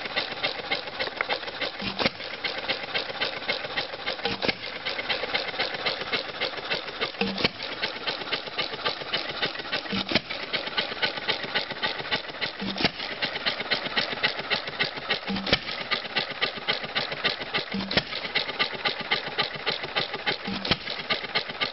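Antique Cushman single-cylinder stationary engine running as a hit-and-miss engine, converted from a throttle-governed engine. It fires with a strong bang once every two to three seconds and coasts between firings with a steady fast clatter.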